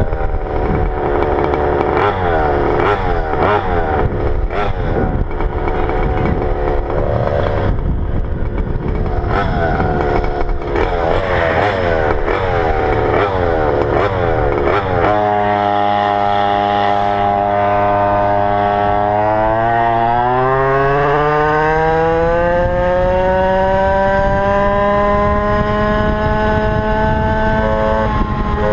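Go-Ped GP460 two-stroke scooter engine running under load. For the first half its pitch wavers up and down about once a second with a clattering edge; about halfway in it changes abruptly to a steady tone that climbs over a few seconds and holds high, the engine at high revs.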